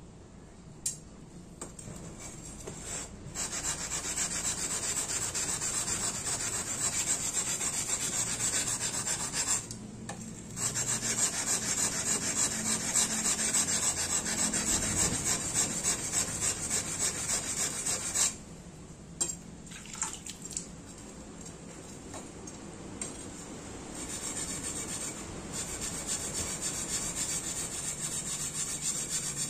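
Steel tanto blade's tip being ground back and forth on a wet whetstone, shaping the yokote and kissaki: a steady rasping scrape of steel on stone. It stops briefly about ten seconds in and goes quieter for a few seconds past the middle.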